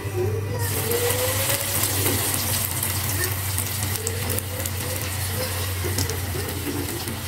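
Kembang goyang batter on its metal mold sizzling and crackling in hot oil in a wok. The sizzle starts suddenly about half a second in as the mold goes into the oil, then carries on steadily over a low hum.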